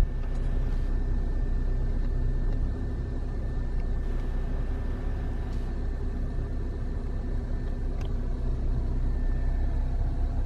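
Steady low rumble of a car running, with a faint thin steady whine above it.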